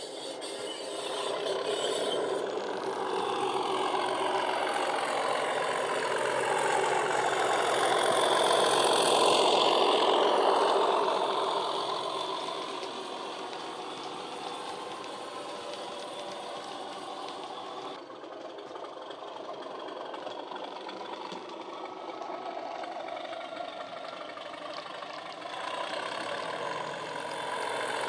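DCC sound decoder in a model Class 37 diesel playing the sound of its English Electric V12 engine through the model's small speaker, with the engine note gliding in pitch. It grows louder as the model passes close by, then fades, dropping suddenly about two-thirds of the way through.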